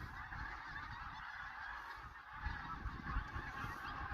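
Geese honking continuously, many voices overlapping into a dense clamour, with low buffeting underneath.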